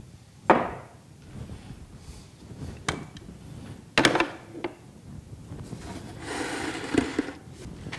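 Sharp metal knocks and clunks as the steel planer-knife holding jig is handled and set down on the guide rail of a Makita 98202 wet blade sharpener. The loudest knock comes about half a second in and rings briefly. A short scraping or rubbing noise follows around six seconds in.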